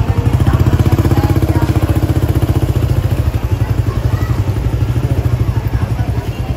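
Small motorcycle engine running at low speed close by, with a rapid, even putter.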